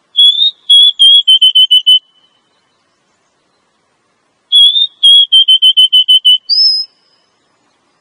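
Female oriental magpie-robin (kacer) calling twice, in loud, clear whistled phrases. Each phrase opens with a couple of longer notes and runs into a fast string of short notes that drop slightly in pitch; the second ends on a higher upslurred note. This is the female's call that draws males, used as a lure.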